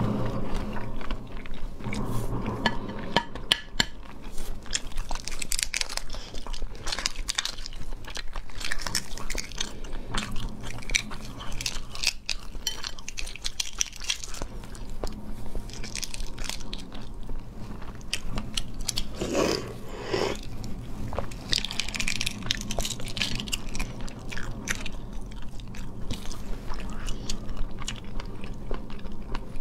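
Boiled half-incubated eggs (huozhuzi) being peeled by hand: a dense run of small crackles and ticks as the shell is broken and picked off, mixed with close biting and chewing.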